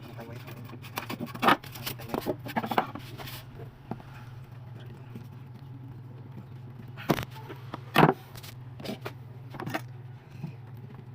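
Scattered knocks, taps and scrapes of objects being handled, with the loudest knocks about seven and eight seconds in, over a steady low hum.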